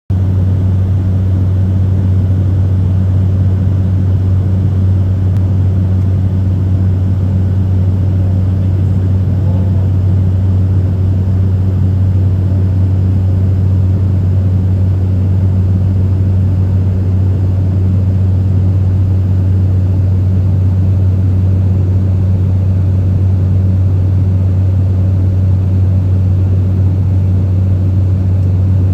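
Airliner cabin noise in flight: a loud, steady low drone of engines and airflow that does not change.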